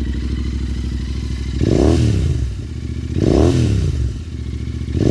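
Royal Enfield Continental GT650's 648 cc parallel-twin engine with Gursewak slip-on exhausts, idling steadily, then blipped twice in quick succession, each rev rising and falling back to idle within about a second, with a third blip starting near the end. The response to the throttle is sharp.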